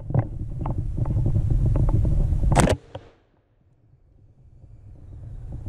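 Handling and wind rumble on the camera, then a single rifle shot about two and a half seconds in, after which the sound cuts off abruptly.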